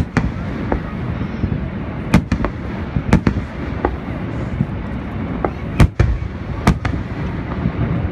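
Aerial fireworks shells bursting: sharp bangs, about five loud ones and several fainter ones in eight seconds, over a steady low rumble.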